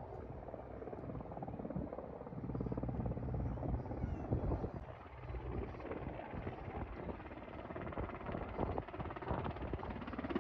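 Helicopter in flight, its rotor chopping with a fast, even beat.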